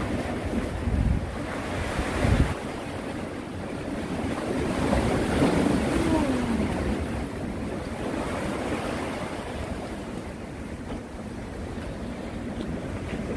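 Sea waves washing against the concrete tetrapods of a breakwater, a steady rushing wash, with wind buffeting the microphone in gusts during the first couple of seconds.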